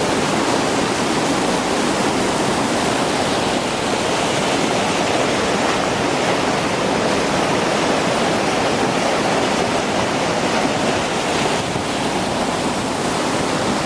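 Rushing water of a mountain river, a steady, even rush with no break.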